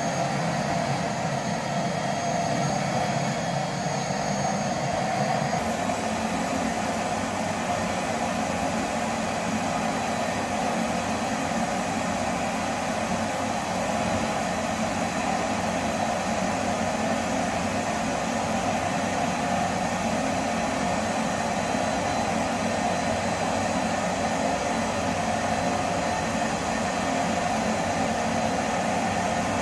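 Vacuum cleaner running steadily. Its low rumble drops a little about five seconds in.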